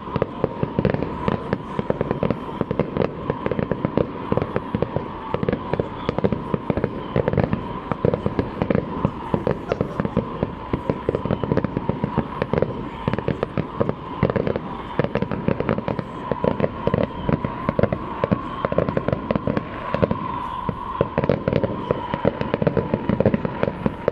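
Large professional fireworks display going off in a dense, continuous barrage: many shell bursts and bangs in quick succession with crackling, never pausing.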